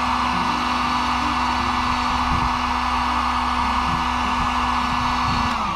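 Handheld electric hot-air blower running steadily, heating heat-shrink tubing over freshly soldered wires. Near the end it is switched off and its motor whine falls in pitch as it spins down.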